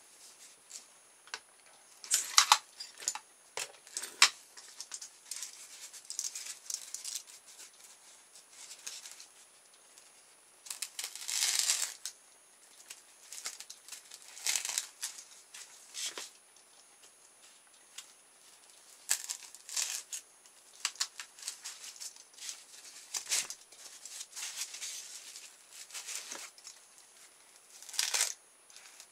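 Polyethylene foam packaging being handled and cut into pieces: irregular short bursts of scratching and rustling with pauses between, the sharpest a couple of seconds in and again about four seconds in.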